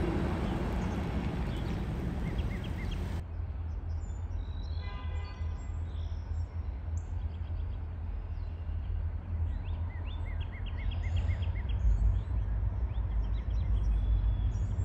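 Freight cars rolling over a street grade crossing. This changes suddenly to the low steady rumble of a diesel freight locomotive approaching from a distance. Birds chirp in short repeated calls, mostly in the second half.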